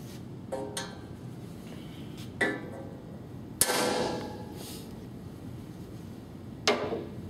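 A ball-peen hammer strikes a center punch held in a punch holder against a thin sheet-metal panel. There are four sharp metallic clanks, the first one weaker. The loudest comes about three and a half seconds in and rings on for about a second.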